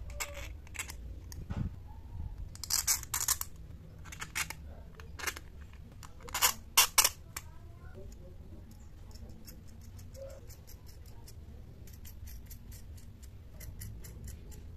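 Long metal bolts clicking and tapping against thin acrylic plates as they are pushed through the drilled holes, with louder clusters of clicks about three and seven seconds in and a run of quick, light ticks in the second half. A low steady hum sits underneath.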